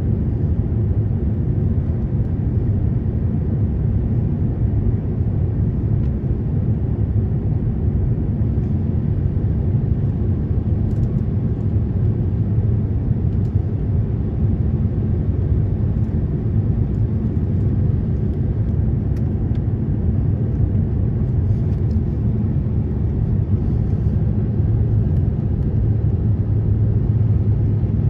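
Steady low rumble of an Airbus A350-900 on final approach, heard from inside the cabin: the noise of its Rolls-Royce Trent XWB engines and the airflow around the aircraft.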